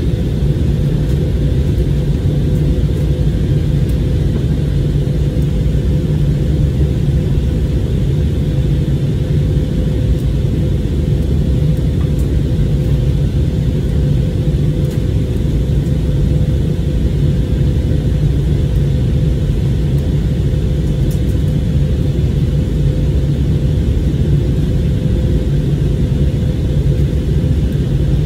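Steady in-flight cabin noise of an Airbus A321neo during descent, heard from a window seat near the rear. It is a loud, even low rumble of engines and airflow with a steady hum running through it.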